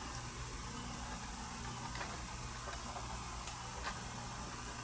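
A few faint, sparse metallic clicks of jewelry pliers working a small jump ring, over a steady low hum.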